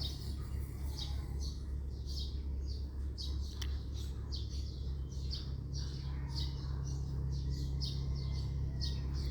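A small bird chirping over and over, about two short high chirps a second, over a steady low hum.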